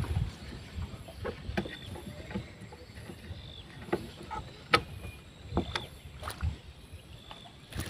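Irregular knocks and clicks of handling aboard a small fishing boat, over a low rumble of water and motion; one sharp knock stands out about halfway through.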